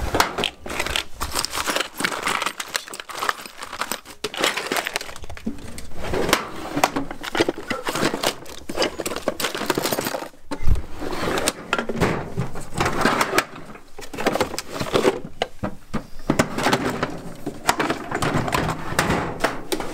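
Hand tools and small odds and ends clinking and rattling against each other in a Craftsman tool chest drawer as a hand rummages through them, with a louder knock about halfway through.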